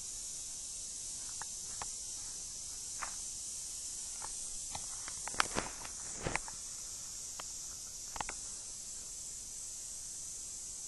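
Steady high hiss of background recording noise, with scattered faint clicks and taps; a few sharper ones come a little past halfway and again about two thirds in.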